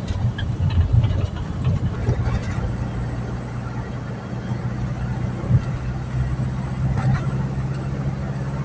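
Engine and road noise of a moving vehicle heard from inside its cabin: a steady low hum with a few faint clicks.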